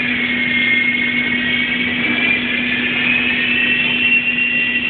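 Small electric remote-control toy helicopter running, its motor and rotors giving a steady high whine whose pitch wavers slightly, over a steady low hum.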